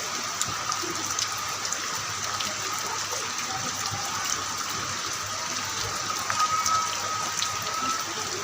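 Heavy rain falling steadily, with scattered individual drop ticks and a faint steady high tone underneath.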